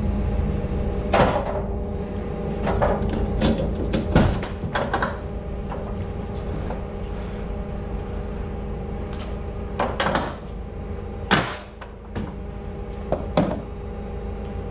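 Irregular sharp knocks and clatter of pallet handling on a truck trailer's floor, about ten in all, over a steady machine hum.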